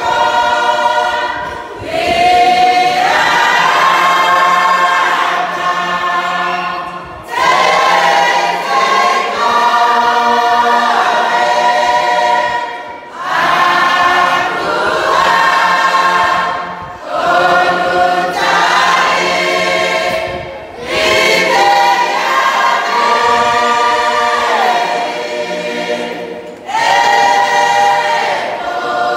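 A Cook Islands church congregation singing a hymn together, many voices at once. It goes in sung phrases a few seconds long, each ending in a brief break before the next.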